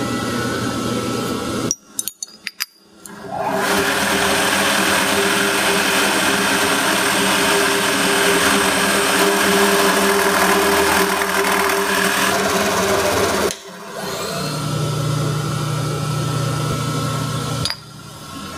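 Vertical knee milling machine running: a steady mechanical whir with a hum, broken by brief drop-outs about two seconds in and again near the end.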